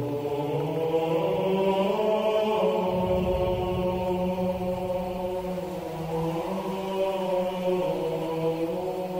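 Background music of slow, sustained chant-like tones. The chord shifts every few seconds, with a deep low swell about three seconds in.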